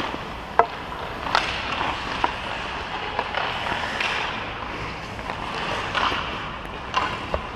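Hockey skate blades scraping and gliding on ice in a steady hiss, with several sharp clicks of a hockey stick on puck and ice.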